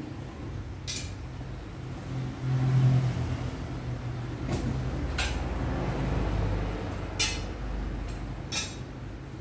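Metal computer-chair parts clinking and knocking as they are unpacked, about five sharp clinks spread through, with plastic wrapping and cardboard handled over a steady low rumble.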